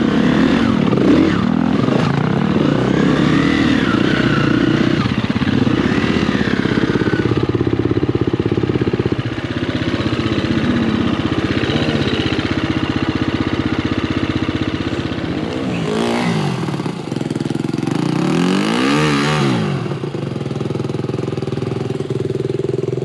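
Dirt bike engine being ridden hard, its revs climbing and falling as the throttle is worked, with two quick swoops down and back up in pitch near the end.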